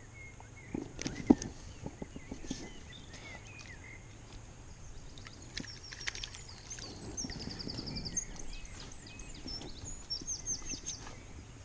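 A small bird singing through the second half: quick high chirps and fast trills of repeated notes. Before that, a few handling clicks and one sharp knock about a second in.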